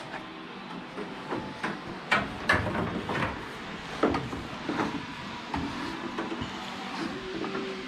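Irregular clunks, taps and rattles of plumbing tools and PEX fittings being handled, over the steady hum of a fan.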